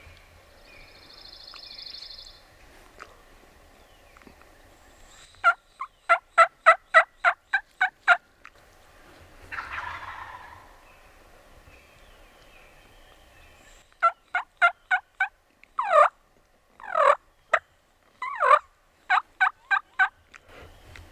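Turkey yelping: a loud run of about a dozen sharp, evenly spaced yelps. After a pause a second series follows, broken by three longer falling notes.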